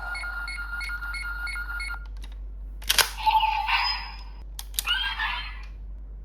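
GUTS Sparklence transformation toy playing a looping electronic standby tone with beeps about twice a second, which cuts off after about two seconds. Then come two sharp plastic clicks, each followed by a short burst of electronic sound effects.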